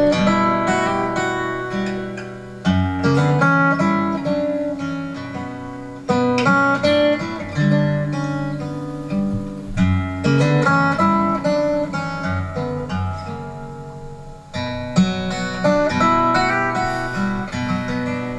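Acoustic guitar playing an instrumental song intro: chords struck and left to ring, with a new phrase struck every three to four seconds.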